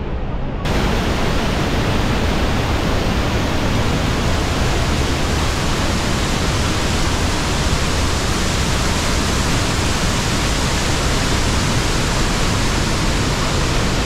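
Waterfall at Iguazu Falls: a loud, steady rush of falling water that starts abruptly about half a second in and holds even throughout.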